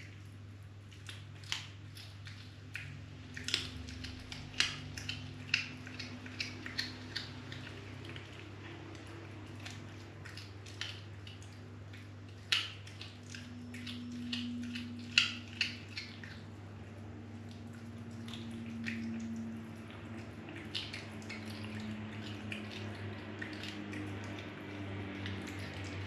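Cat chewing a mouse: irregular wet crunches and sharp cracks, thickest in the first half and sparser later, over a steady low hum.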